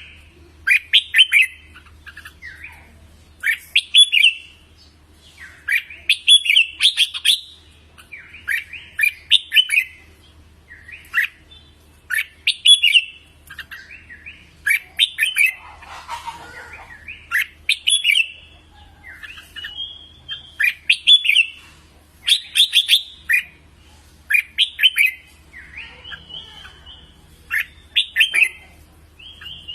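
Red-whiskered bulbul singing: short, loud warbled song phrases repeated every second or two.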